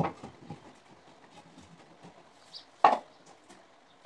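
Knocks on plywood as the chimney-hood panels are fitted to the wooden frame: one knock at the start and a sharper, louder one about three seconds in, with faint taps between.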